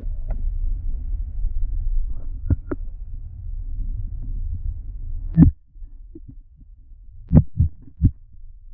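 Muffled underwater sound inside a GoPro's waterproof housing, in the creek current below a dam spillway: a low rumble of flowing water that drops away after a loud knock about five seconds in. Several more sharp knocks come near the end.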